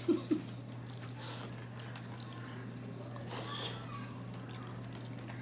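Faint eating sounds, soft wet squishing and chewing of khichuri, over a steady low hum.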